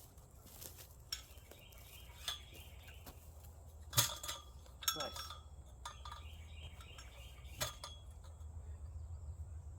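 Several sharp metallic clinks and knocks, each with a brief ring, the loudest about four and five seconds in. A bird trills faintly now and then over a low steady hum.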